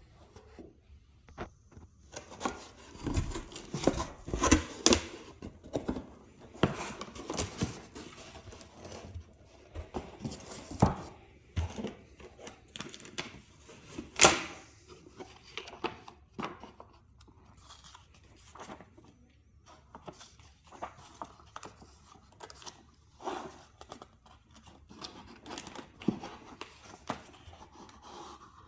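A cardboard box being opened and unpacked by hand: packing tape tearing, cardboard flaps and a moulded pulp tray scraping and knocking, and plastic wrap crinkling. The sounds come in irregular bursts, busiest a few seconds in, with one sharp loud one about halfway through.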